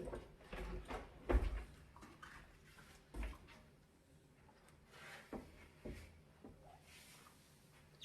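Stove and oven cleaning and handling sounds: a run of short knocks, scrapes and rubs at irregular intervals, the loudest a bump about one and a half seconds in.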